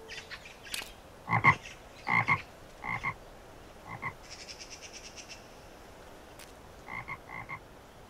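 Cartoon sound effects: a series of short creature-like calls, each a quick double pulse, in a group early on and another near the end, with a brief run of fast ticking in between.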